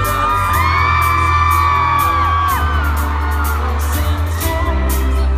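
Live rock band playing loud, with heavy bass, electric guitar and a steady drum beat. In the first half several high voices in the crowd whoop and scream over the music.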